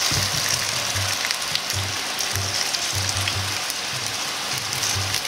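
Diced chicken breast sizzling in a little oil in a non-stick frying pan, a steady hiss with small crackles. Soft background music with a low, regular beat runs under it.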